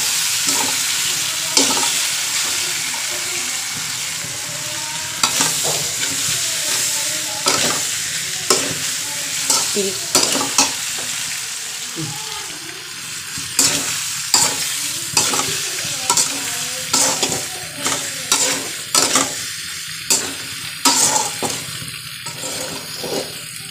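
Boiled macaroni and vegetables sizzling in oil in an aluminium kadhai while a spatula stirs them. The spatula scrapes and knocks against the pan about once a second, coming faster in the second half, while the sizzle fades somewhat.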